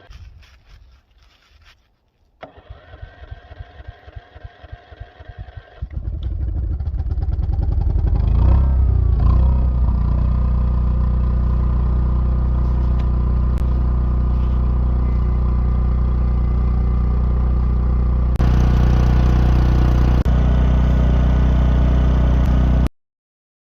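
Backup generator engine on a cold start: the starter cranks it in rhythmic pulses, pauses briefly, cranks again, and the engine catches about six seconds in. It revs up and settles into a steady run, sounds brighter about two-thirds of the way through, and cuts off abruptly near the end.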